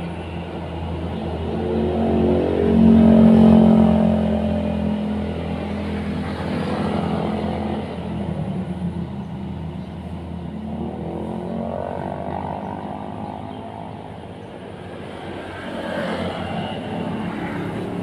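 Motor vehicles passing on a road: a low engine hum that swells as one goes by about three seconds in, again around twelve seconds, and grows again at the end.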